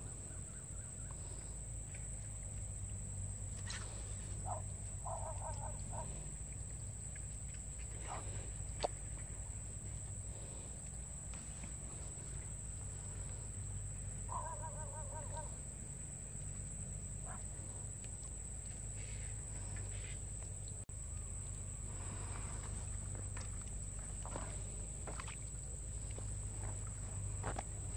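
Steady high insect drone of crickets over a low outdoor rumble, with two short bursts of a bird's honking calls, about five and fifteen seconds in.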